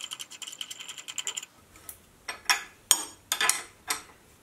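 A flange nut spun by hand down a steel threaded stud, rattling in a fast run of ringing metallic clicks, then a spanner tightening it with a few separate sharp metal clicks.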